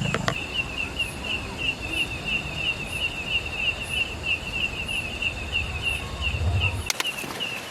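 An insect chirping in a fast, even rhythm, about three or four high chirps a second, over a low steady rumble. The rumble cuts off abruptly with a click near the end while the chirping goes on.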